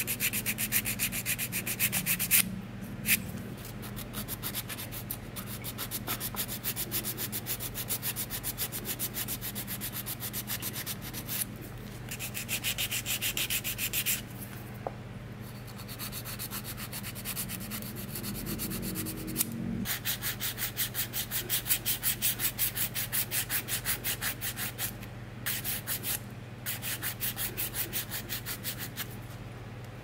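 Hand-held grit nail file rasping back and forth over acrylic nail extensions, shaping them in quick, even strokes of about three a second, broken by several short pauses.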